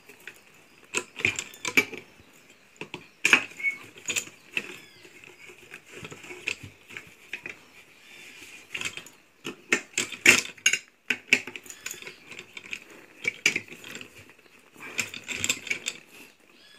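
Hand tools clinking and scraping against the metal bolts and casing of an Anauger vibrating submersible pump while its bolts are tightened: irregular sharp metallic clicks, clustering in bursts around the middle and near the end.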